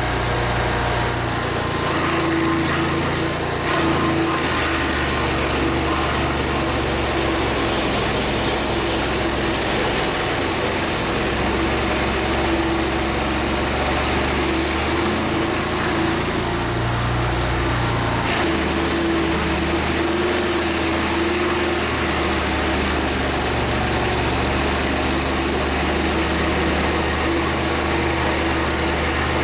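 Small petrol engine running steadily, its low note shifting in steps every few seconds as the load changes.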